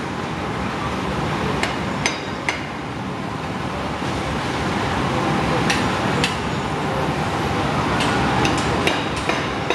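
Construction-site din: a steady background roar with scattered sharp metallic clanks and hammer knocks, several of them bunched near the end.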